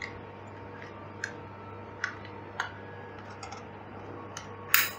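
Small plastic clicks and taps as an RJ45 plug on an FTP Cat 6 network cable is handled and pushed into the port of a small plastic network switch, a few scattered clicks with a sharper one near the end.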